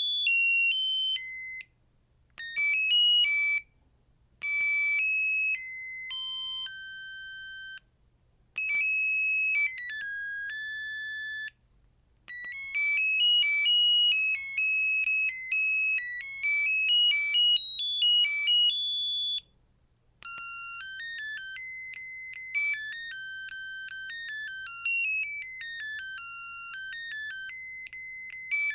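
The 2001 Samsung SGH-R225 mobile phone's built-in ringtones playing one after another: short, beeping electronic melodies made of clean, high single notes, each tune followed by a brief silence before the next begins.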